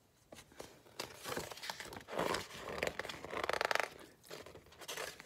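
Paper pages of a picture book rustling and crinkling as the book is handled and its pages turned, with a few light clicks.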